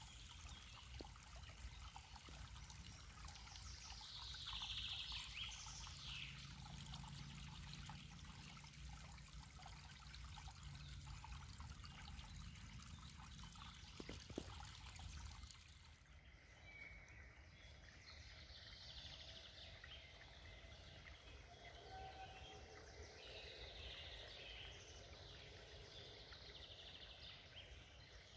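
Faint trickling water with birds calling now and then, and a single short knock about halfway through.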